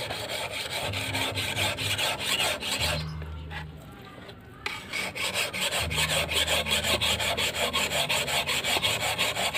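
A88-steel machete blade being stroked back and forth on a Pacitan natural whetstone: a rhythmic rasping scrape of several strokes a second, with a short pause about three seconds in. The steady bite in the scrape shows the stone is still cutting the steel.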